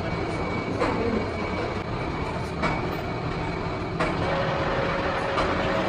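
Steady machine-shop din from running machinery, with three sharp knocks spread across it. A thin high tone gives way to a lower steady tone about four seconds in.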